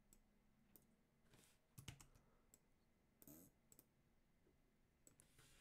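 Near silence broken by a handful of faint, scattered computer mouse and keyboard clicks as audio clips are cut and duplicated in an editor.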